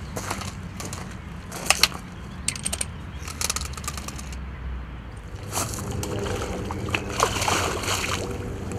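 A hooked carp splashing and thrashing at the surface close to the bank as it is played and netted. Clusters of sharp clicks come in the first half, and the splashing grows louder from about halfway.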